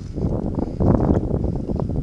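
Wind buffeting the GoPro's microphone: a loud, irregular low rumble, mixed with rustling from the camera being handled.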